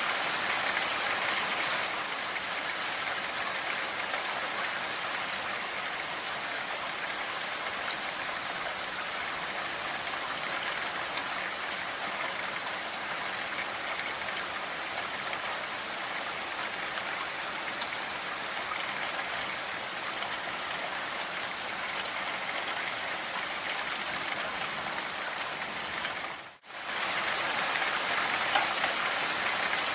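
Steady rain falling, an even hiss of many drops, which dips away for a moment near the end and comes straight back.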